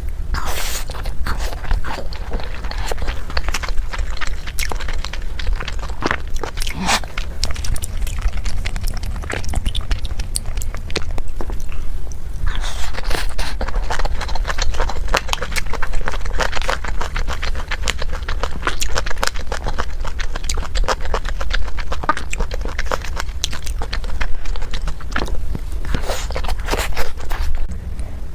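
Close-miked eating: a person biting and chewing large mouthfuls of food, a dense run of wet clicks and crackles that comes in clusters, over a steady low hum.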